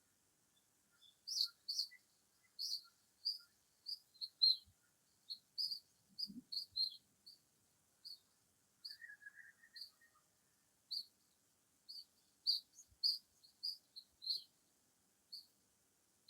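Songbirds chirping: short, high chirps repeated irregularly, about one or two a second. A brief lower twittering trill comes about nine seconds in.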